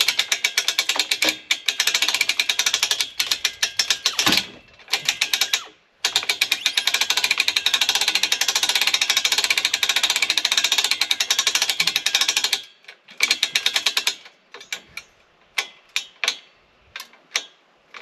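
Hand-crank winch being wound, its ratchet pawl clicking rapidly as it drags a heavy log; the cranking stops briefly a few times, and for the last few seconds the clicks thin to scattered ones. It is a cheap store-bought winch whose pawl the owner says doesn't latch or lock properly.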